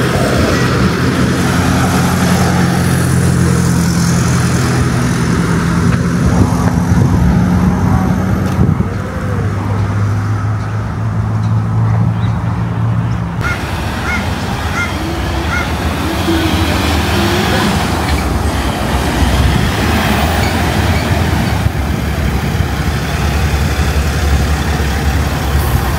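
A vehicle engine running close by, a steady low hum that shifts in pitch a few times. About halfway through it gives way to a lower, rougher rumble.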